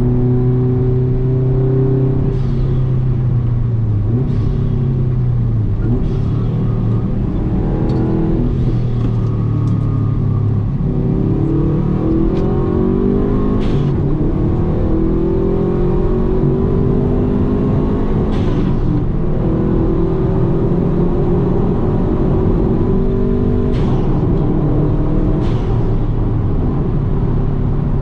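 Subaru WRX's turbocharged flat-four engine running hard on a race track, its pitch holding, falling and climbing again as it pulls through the gears. Several short sharp clicks or pops come between the pulls.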